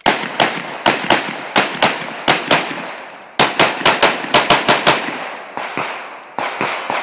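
Rapid pistol fire during an IPSC stage: about twenty loud shots, many fired as quick pairs, with a brief pause near the middle before the shooting resumes.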